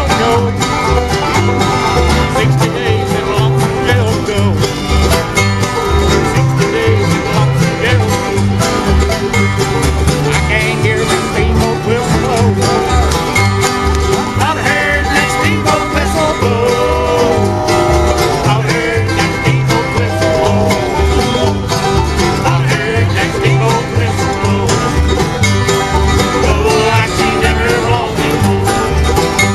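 Bluegrass band playing, banjo and guitar to the fore over a steady, evenly stepping low beat.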